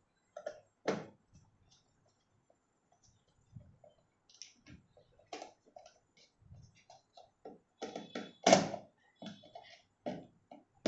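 Irregular clicks, taps and knocks of plastic electric-kettle parts being handled and worked on, with the loudest knock about eight and a half seconds in.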